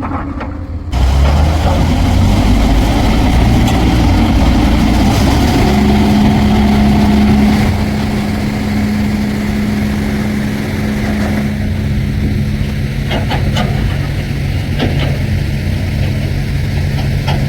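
Heavy diesel engine of earthmoving machinery running, jumping louder about a second in. A steady hum runs through the middle, and the level settles a little lower after about eight seconds.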